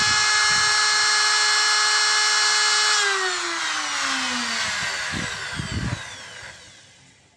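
Trim router mounted as a CNC spindle, running at full speed with a steady high whine. It is switched off about three seconds in and winds down, its pitch falling as it coasts to a stop near the end. A few low thumps come during the spin-down.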